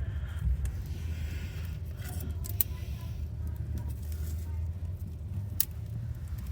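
Wood fire crackling, with a few sharp pops, over a steady low rumble.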